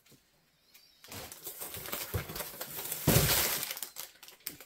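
A cardboard shipping box being pulled open and a plastic-wrapped item lifted out, with crackling cardboard and crinkling plastic rustle. It starts about a second in and is loudest about three seconds in.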